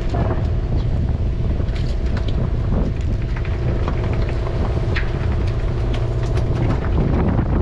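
A party fishing boat's engine running with a steady low drone, with scattered small clicks and knocks over it.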